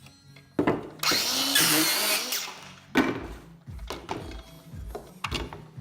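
A power tool runs briefly for about a second and a half, with sharp knocks before and after it.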